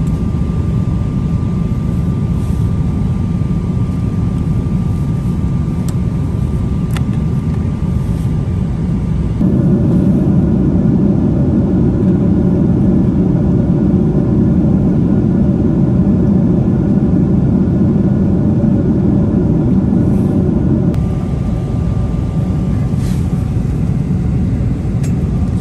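Steady low rumble of a Boeing 777-300ER cabin in flight, with a faint steady whine. About nine seconds in, an abrupt cut brings a louder stretch of the same rumble with a layered engine hum of several steady tones. It cuts back to the quieter rumble about twenty seconds in.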